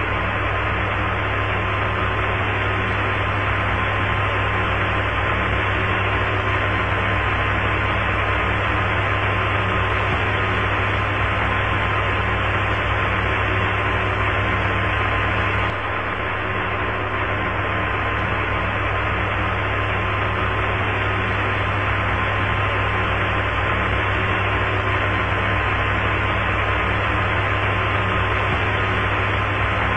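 Steady hiss and hum of an open Apollo 11 air-to-ground radio channel, with a thin steady tone running through it. The level dips briefly about halfway through.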